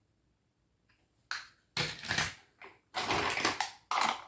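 Toys being handled and rummaged through: a few short bursts of rustling and clattering, starting about a second in.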